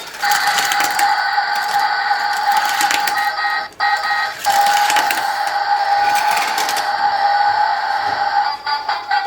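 Toy parking garage's electronic sound effects playing through its small built-in speaker: a tinny, steady high electronic tone with a rapid clicking texture, which cuts out briefly a little under four seconds in and then resumes.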